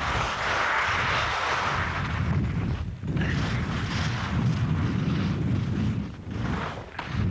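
Wind buffeting the microphone of a camera skiing downhill, a heavy rushing rumble, with skis hissing over the snow, loudest in the first couple of seconds and dropping off briefly twice.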